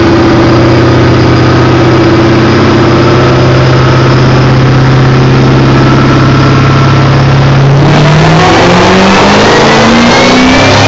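2008 Shelby GT500's supercharged 5.4-litre V8, breathing through a Magnaflow exhaust, running at a steady engine speed. From about eight seconds in, the revs climb smoothly as it accelerates.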